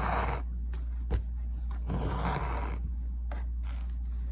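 Embroidery thread being pulled through fabric by hand: two long swishing pulls, one at the start and another about two seconds in, with a few faint ticks, over a steady low hum.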